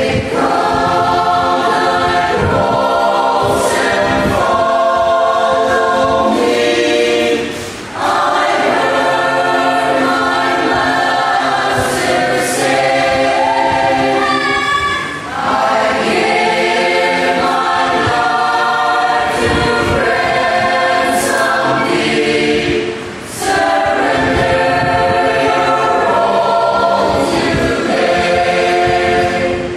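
A mixed choir of men and women singing a hymn a cappella, in long sustained phrases with short breaks for breath every seven or eight seconds.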